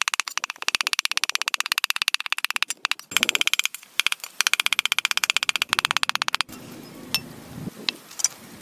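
A cleaver chopping rapidly on a thick wooden chopping block, mincing small fish into a paste, about ten strokes a second with a couple of brief pauses. The chopping stops about six and a half seconds in.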